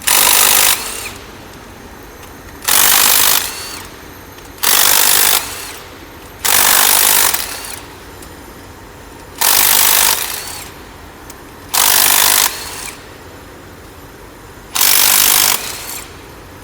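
Impact gun loosening the M12 bolts that hold the axle box thrust collars, run in seven short bursts of about a second each, a second or two apart.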